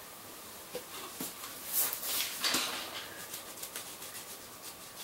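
Faint pencil scratches and paper rustles, a few short strokes scattered over a steady low hiss.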